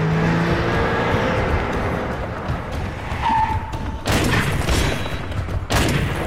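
Action-film sound mix: a car's engine and tyres rumbling low under score music, with two sudden loud noisy hits about four and about six seconds in.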